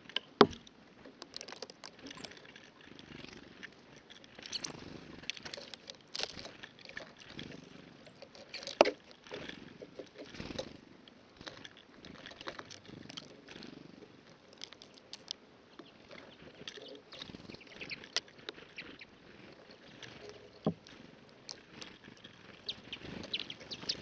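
Irregular small taps, clicks and knocks of blue tits landing on, clinging to and pecking at a plastic tube seed feeder, with a sharp knock just after the start and another about nine seconds in.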